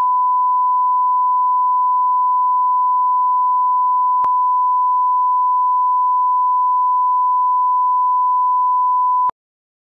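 Line-up test tone played with colour bars: a single steady, loud, pure thousand-hertz beep, with a faint click about four seconds in. It cuts off suddenly shortly before the end.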